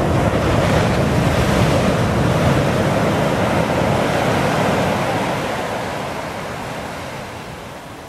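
Pacific Ocean surf: a wave breaking and its foam rushing up the beach, the wash fading over the last few seconds.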